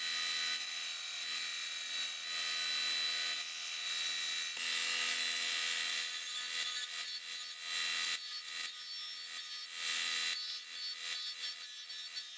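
Ryobi 370 W belt and disc sander running with a steady motor hum while a hardened steel gouge blank, cut from linear rail, is ground against the sanding disc to clean it up and add clearance on its underside. The metal rasps against the abrasive in short, irregular passes in the second half.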